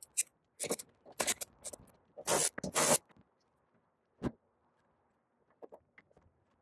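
Hand-work noise while fitting a rubber tailgate seal: a run of short scraping and rustling sounds, the two longest and loudest near the three-second mark, then a single sharp click and a few faint ticks.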